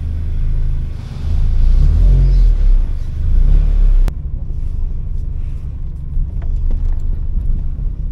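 Honda Civic EP3's engine running, heard from inside the cabin: a loud low rumble for the first four seconds, then a sharp click and a drop to a quieter, steady rumble as the car drives.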